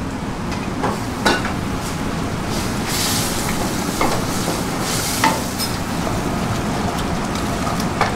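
Spiced tomato curry base sizzling in a pot as it is stirred, with a few knocks of the stirring utensil against the pot.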